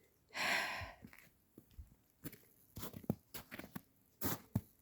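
A short breathy exhale about half a second in, then a string of faint, irregular crunches and clicks.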